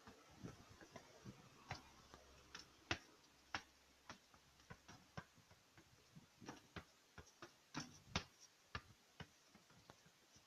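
Faint, irregular light clicks and taps, spaced unevenly, about one or two a second.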